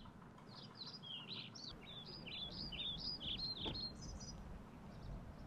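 A songbird singing a quick run of short, high chirps, many sliding down in pitch, starting about half a second in and ending about four and a half seconds in.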